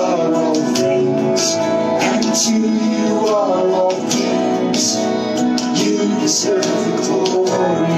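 Live worship music: a band with guitar, and singing.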